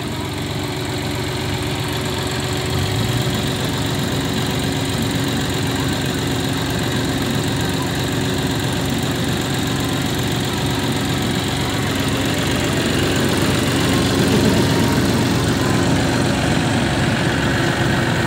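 John Deere tractor's diesel engine running steadily at close range, with an even low throb that grows stronger about three seconds in.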